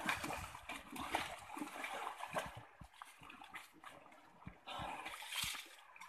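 Komodo dragons feeding on a carcass: irregular tearing and chewing, with many scattered short clicks and knocks.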